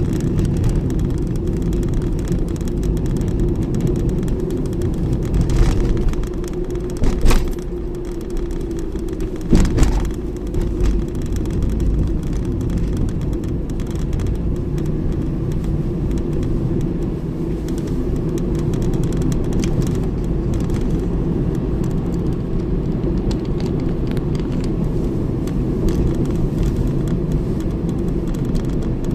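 Steady engine and tyre road noise inside a moving car, picked up by a dashboard camera, with a couple of short sharp knocks about seven seconds in and again about two seconds later.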